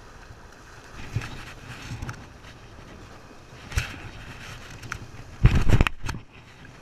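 Steady wind and water noise with a few small knocks, then a louder low rumbling bump of about half a second near the end, from the camera being handled and moved.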